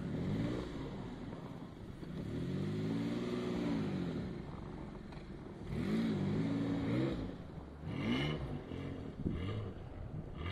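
Isuzu VehiCROSS V6 engine revving, its pitch rising and falling several times as the car ploughs and spins through deep snow. The engine sounds strange because its front exhaust downpipe (Y-pipe) has cracked.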